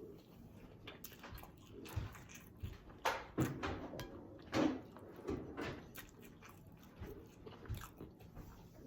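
Scattered light knocks and clatter of household handling, a dozen or so irregular taps and bumps with a couple of louder ones in the middle.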